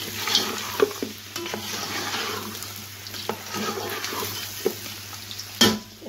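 Mutton pieces sizzling in hot oil with onions, tomatoes and green chillies as they are stirred and fried (bhuna) in a pan, with scattered clicks and scrapes of the stirring and one louder knock near the end.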